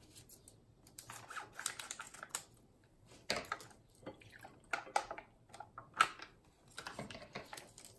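Pear juice squeezed from a plastic pouch into a glass bowl, with the pouch crinkling, the juice pouring, and a wooden spoon tapping against the glass as it stirs. Irregular soft clicks and taps, the sharpest about six seconds in.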